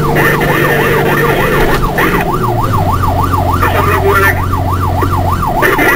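Fire engine's siren in yelp mode, its pitch swinging rapidly up and down about three times a second, heard from inside the cab with the truck's engine running steadily underneath.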